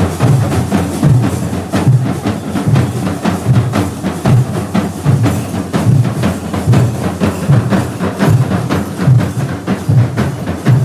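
Festival percussion ensemble: several drums beaten in a fast, dense rhythm, sharp stick strokes over deep booming beats.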